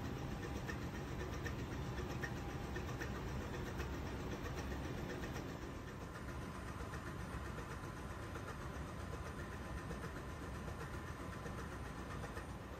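Steady low machinery drone of a ship's engine room running in the background. It drops slightly about six seconds in.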